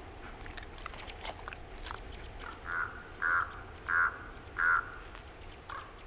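Raven calling four times in quick, evenly spaced succession, short hoarse calls, then once more more faintly, over a low steady wintry rumble with a few soft crunches.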